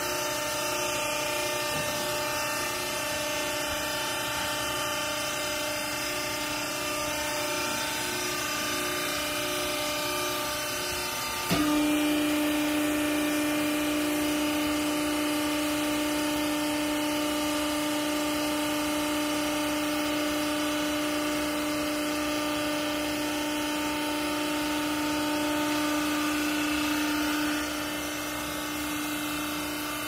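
Hydraulic power unit of a vertical scrap-cloth baling and bagging machine running with a steady hum. About a third of the way in it jumps louder with a strong steady tone as the hydraulic ram presses down on the cloth, and it drops back to the lighter hum near the end.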